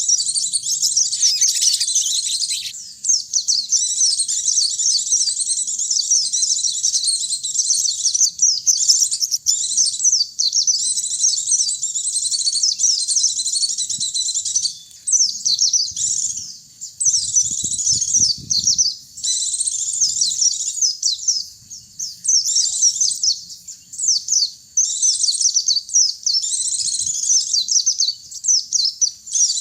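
Pleci (white-eye) and sogon birds singing a fast, high-pitched twittering song almost without pause, with a few short breaks in the second half.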